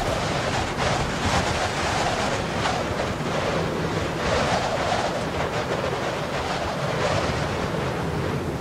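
Steady wind rushing over the microphone, mixed with the wash of ocean surf breaking at the foot of the sea cliffs.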